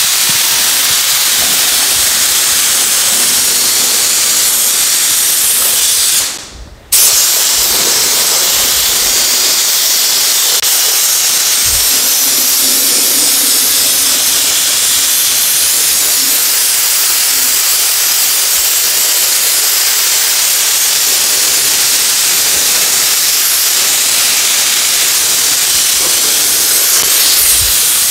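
Gravity-feed compressed-air paint spray gun spraying, a steady loud hiss that stops for about a second some six seconds in, then resumes. The paint is going on as a light first coat.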